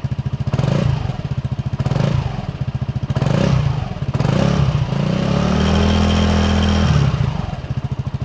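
Honda S-Wing 125 scooter's single-cylinder four-stroke engine idling through a Turbo Kits aftermarket exhaust with the baffle fitted, blipped on the throttle four times, then held at higher revs for about two seconds before dropping back to idle.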